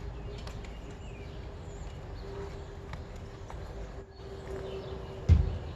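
Quiet handling of a bicycle tyre and inner tube being worked onto the rim: light rustles and small clicks over a steady low hum, with one heavy low thump about five seconds in.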